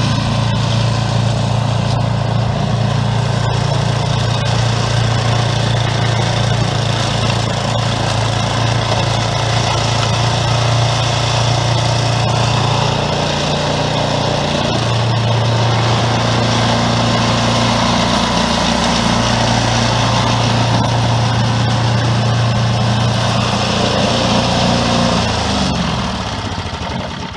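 Craftsman 11/30 two-stage snowblower engine running steadily at working speed, with its new auger belt fitted. Near the end the engine slows and its pitch drops as it winds down.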